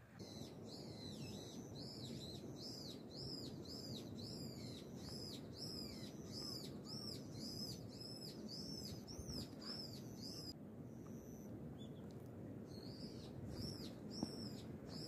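A small bird calling over and over, short arched high-pitched notes about two a second. It pauses about ten seconds in, then starts again, over a steady low outdoor background noise.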